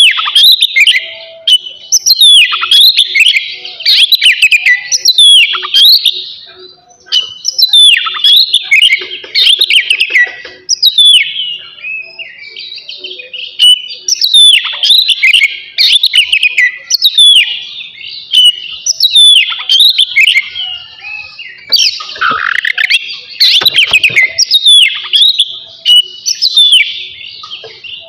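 Oriental magpie-robin (kacer) singing without a break: loud, rapid whistled phrases packed with sharp downward-sweeping notes, one phrase after another.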